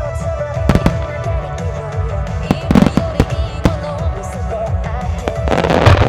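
Starmine fireworks bursting in sharp bangs over music played on loudspeakers, with a dense crackling spell near the end.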